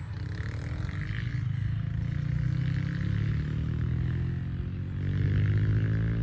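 Motor and propeller of an F3A aerobatic radio-controlled model airplane droning in flight, its pitch shifting and climbing toward the end as it manoeuvres.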